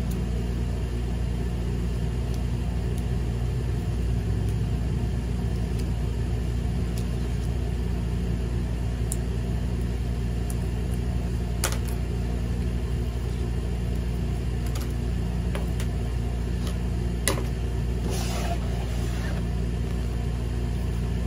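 Steady low hum from a running motor or appliance, with a few faint clicks and a brief rustle near the end as paper and foam tape are handled.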